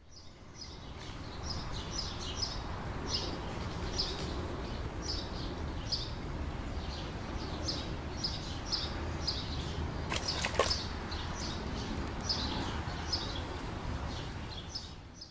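Small birds chirping in short, repeated calls over a steady low outdoor rumble, with a brief burst of sharp clicks about two-thirds of the way through.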